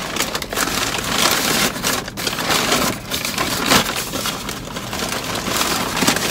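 Brown paper takeout bag rustling and crinkling as it is lifted, opened and rummaged through by hand, with many sharp crackles.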